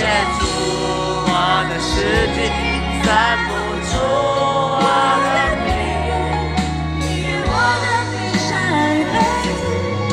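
Live pop ballad played over a concert sound system: sung melody over a band with sustained bass notes that change every couple of seconds.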